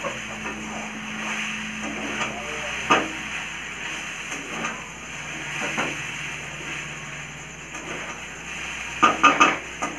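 Chowmein noodles sizzling in a kadhai as a spatula stirs and tosses them, with occasional clacks and scrapes of the spatula against the pan, a quick run of them near the end.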